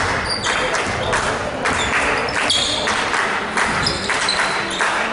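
Basketball game sound in a gymnasium: sneakers squeaking in short high squeals on the hardwood court and the ball bouncing, over voices from players and spectators echoing in the hall.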